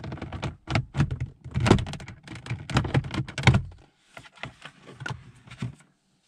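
Plastic clock/multifunction display surround of a Peugeot 206 dashboard being worked loose and unclipped by hand: a rapid run of sharp plastic clicks, creaks and knocks, stopping a little before the end.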